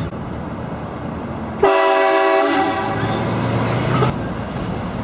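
Train horn giving one blast, a loud chord of several steady tones that starts suddenly about one and a half seconds in and cuts off sharply about two and a half seconds later.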